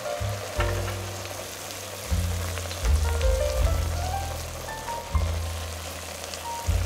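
Chopped onion, carrot and mushrooms sizzling in a Dutch oven as a spatula stirs them. Background music with soft low notes runs underneath.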